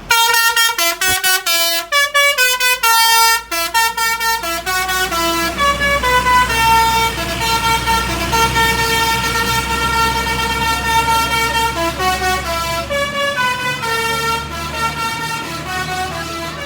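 Indonesian bus 'basuri' musical air horn playing a melody. It starts with a run of quick short notes, then moves to longer held notes, over the low hum of the bus engine.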